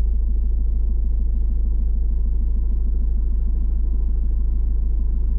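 Car running, heard from inside the cabin as a steady low rumble with a faint, even ticking over it.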